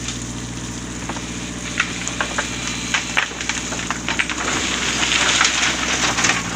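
A backhoe's engine runs steadily while sand and pebbles tip from its bucket into the truck, crackling and rattling from about two seconds in and thickest near the end.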